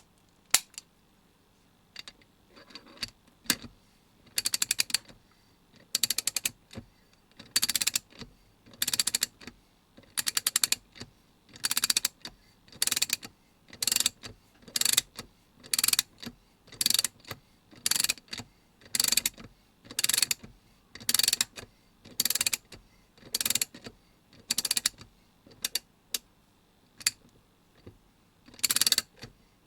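MAC Tools XR8PA 3/8-inch-drive ratchet handle being swung back and forth. Its single pawl clicks over the coarse 30-tooth gear in a quick run of clicks on each return stroke, about one stroke a second after a few scattered clicks at the start.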